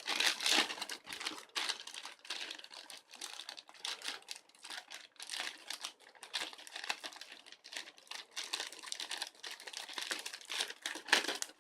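Delivery parcel packaging being opened by hand: irregular crinkling and crackling throughout.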